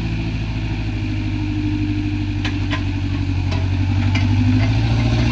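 Sumitomo excavator's diesel engine running steadily, growing a little louder toward the end, with a few light clinks or knocks in the middle.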